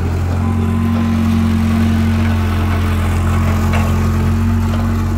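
Caterpillar 308B mini excavator's diesel engine running steadily: a low hum with a higher tone above it that grows stronger just under half a second in.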